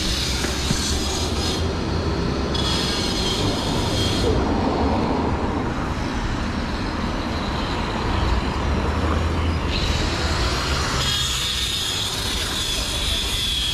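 Steady running noise of a moving vehicle: a continuous low rumble, with a high hiss or squeal that fades out a couple of times and returns strongly in the last few seconds.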